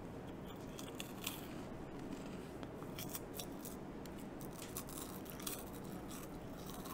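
Faint, scattered clicks and crinkles of a snack package being handled and opened.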